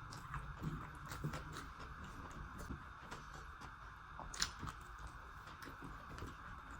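Close-miked chewing and mouth sounds of someone eating a rice meal: soft wet crunches and small clicks, with one sharper click about four and a half seconds in.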